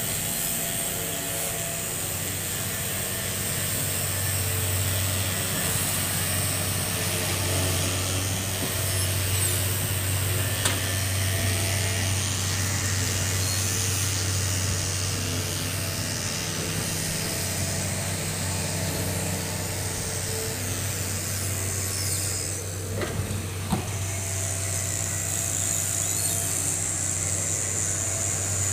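Hitachi crawler excavator's diesel engine running with a steady hum while the machine works, with a few faint knocks about three-quarters of the way through.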